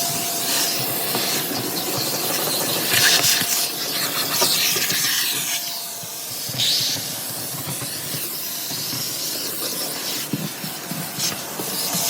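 Steady hissing rush of air from dryer vent cleaning equipment blowing through a lint-clogged vent duct, swelling and fading as the tool moves.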